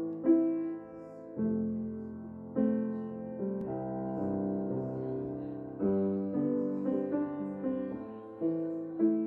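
Slow solo piano music: chords struck about once a second and left to ring.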